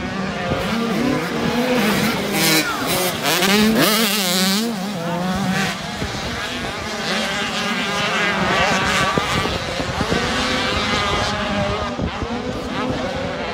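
Several 85cc two-stroke motocross bikes racing, their engines revving up and down over one another as riders work the jumps and turns, loudest about three to four seconds in.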